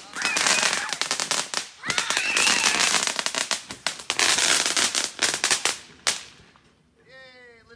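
A string of firecrackers going off in rapid, dense crackling bursts, with a brief pause about two seconds in. It ends in one sharp bang about six seconds in and then dies away.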